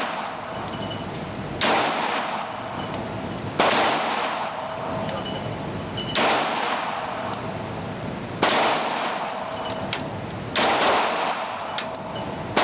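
9mm pistol shots fired slowly, five of them about two seconds apart, each crack ringing off the concrete walls of an indoor range. A steady hiss runs underneath.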